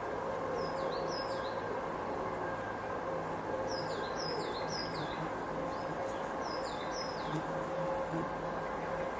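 Distant agricultural machinery, a tractor, droning steadily under a light breeze through the trees. A small bird calls three times, each a quick run of two or three descending chirps.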